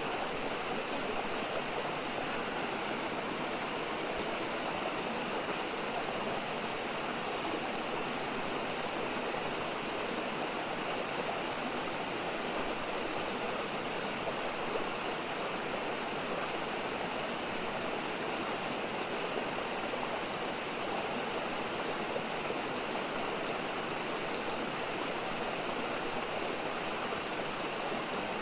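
Mountain stream rushing steadily over rocks, an even, unbroken rush of water.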